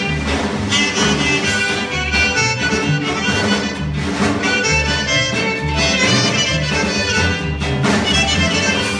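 Live Sonoran regional band music, a dance tune with a steady, pulsing bass beat.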